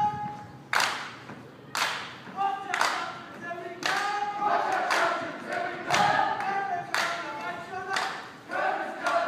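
A group of young voices chanting or singing in unison, punctuated by a sharp clap-like beat roughly once a second.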